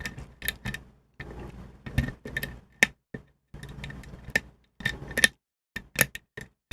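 A metal lock pick scraping and working the pins inside a small Ilco mortise cylinder under tension, with irregular sharp metallic clicks scattered among quieter scratching.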